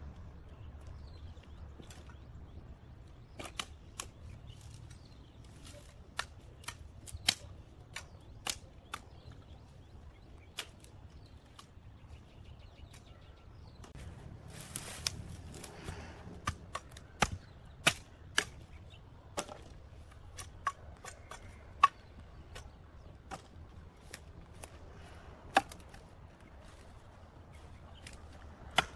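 Sharp, irregular cracks and snaps of dry branches being cut or broken, about one every second or two. Brush rustles briefly about halfway through.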